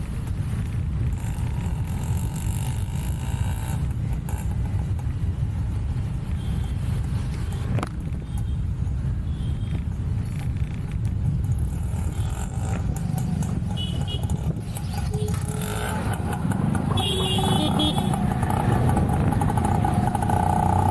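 Steady low rumble of street traffic with passing motorbikes, a few short higher tones heard in the second half.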